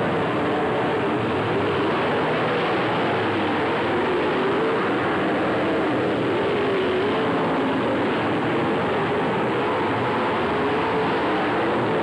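A field of dirt-track race cars running laps together, their engines a steady drone whose pitch wavers up and down as the cars go through the turns and pass.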